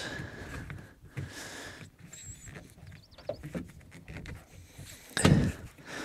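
Faint rubbing and scraping of a bicycle tyre being pushed back onto the rim of a velomobile's front wheel by hand, with a short louder burst of handling noise about five seconds in.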